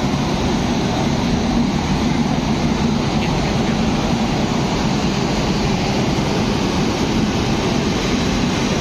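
WAP7 electric locomotive pulling slowly out, giving a steady, even mechanical hum and rumble with no breaks.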